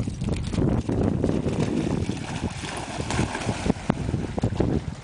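Wind buffeting the microphone, over splashing water as English springer spaniels run through the shallows.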